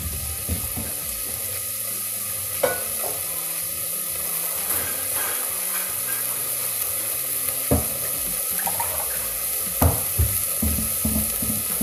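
Onion, tomato, pea and carrot masala sizzling in ghee in an open pressure cooker: a steady sizzle that slowly grows a little louder, broken by a few sharp pops.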